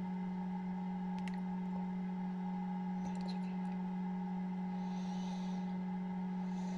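Egg incubator's fan running with a steady low hum, and a few faint clicks about a second in and around three seconds.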